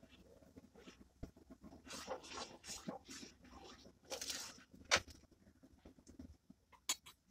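Steel spoon stirring rice into milk in a pan: a run of quick scraping strokes from about two seconds in, then one sharp clink, with a couple of light clicks near the end.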